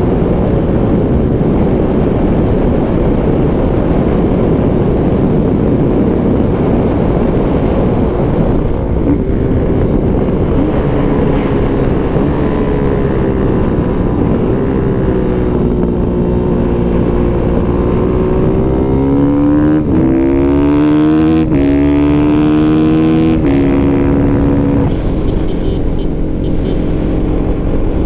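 Onboard sound of a Kawasaki KX450F single-cylinder four-stroke dirt bike ridden on a paved race track, with wind rushing over the camera microphone. The engine note rises and falls. About two-thirds of the way through, it pulls hard with its pitch climbing, and drops twice at gear changes.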